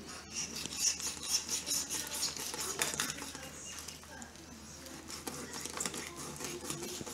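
Blunt knife sawing and scraping through a flathead's skin and flesh behind the head: a quick, scratchy rasping made of many small clicks, loudest in the first three seconds, then fainter.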